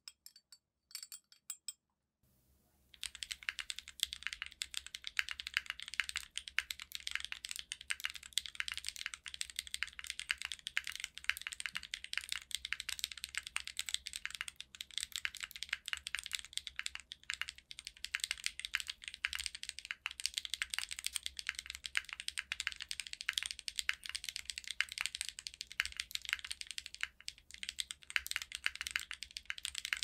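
A few light clinks of a spoon against a glass jar in the first second or so. Then, from about two seconds in, steady fast typing on a Keychron Q9 40% aluminium keyboard with lubed Gateron SolDark tactile switches and DCS keycaps: a dense, unbroken run of keystrokes.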